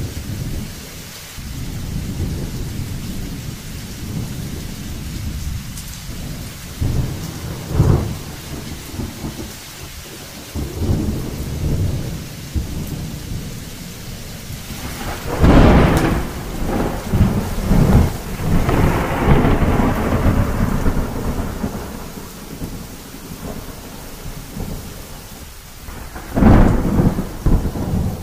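Thunder rumbling on and off, with a loud sharp clap about halfway through and another near the end, over a steady hiss of rain.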